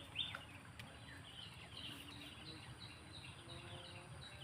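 Faint bird chirps: quick runs of short, falling high notes, one right at the start and more from about a second and a half in, over a low outdoor background hiss.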